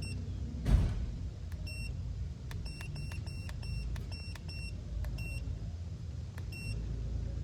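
Handheld OBD-II scan tool beeping as its buttons are pressed to clear codes: many short high beeps at an irregular pace, over a low steady rumble. One loud thump comes about a second in.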